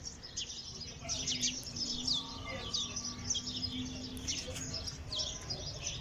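Birds chirping, many short, high calls overlapping in a busy chorus.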